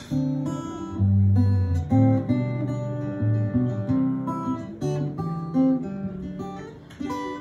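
Acoustic guitar playing an instrumental passage of a song, plucked notes and strummed chords with no singing.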